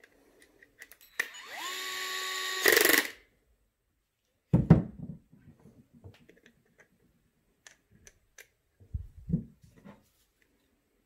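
Cordless power drill/driver spinning up briefly, running steadily for about two seconds with a louder burst as it stops. This is followed by a couple of handling knocks.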